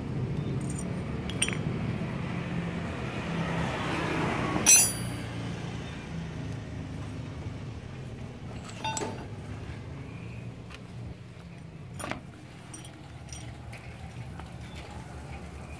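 Small metal clinks and taps of the screws, cover and spring from a Suzuki Satria F's vacuum carburetor being handled and set down. The loudest is a bright, ringing clink a little under five seconds in, with fainter knocks around nine and twelve seconds. A steady low hum runs underneath.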